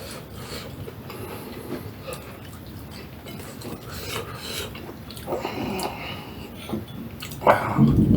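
Soft, irregular chewing and mouth sounds of a person eating rice, spinach, fried egg and fried potatoes, with a louder knock near the end.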